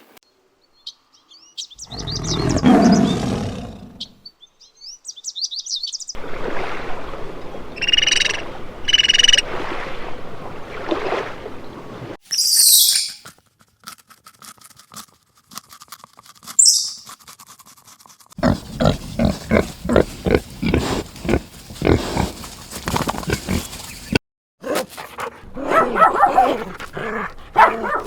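A run of different animal calls and cries, one short clip after another with sudden cuts between them; the loudest is a low call about two seconds in.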